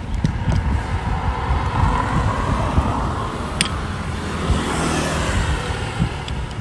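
Motor vehicle running with road noise and low rumble, with a single sharp click about three and a half seconds in.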